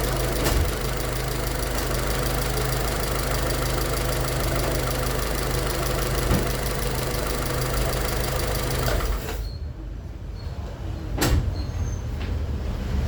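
2006 Volkswagen Fox 1.6 engine running with a fine, even knock, the noise of play that the owner suspects comes from worn main bearings or connecting-rod bearings. About nine seconds in the engine stops, and a single sharp clunk follows a couple of seconds later.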